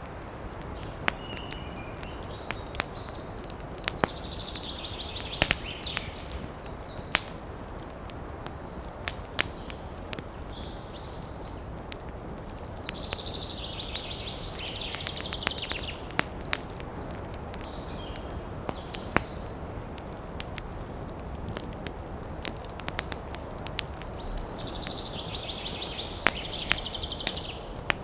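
Wood campfire crackling, with frequent sharp pops over a steady hiss. Three times, a high, rapid trilling call from a woodland animal rises above it for a couple of seconds.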